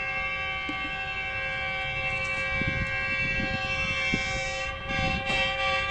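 Locomotive horn of an approaching passenger express held in one long, steady chord, over a low rumble. A short knock comes about five seconds in.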